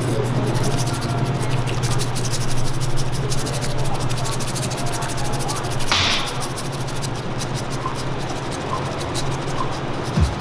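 Bamboo matcha whisk (chasen) whisked rapidly through matcha tea in a ceramic bowl: a fast, steady scratchy swishing as the tines brush the bowl and froth the tea. A steady low hum runs underneath, with a brief hiss about six seconds in.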